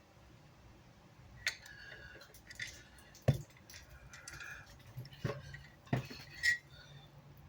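Scattered light clicks and small metallic clinks, about six of them, from tools and parts being handled on a workbench.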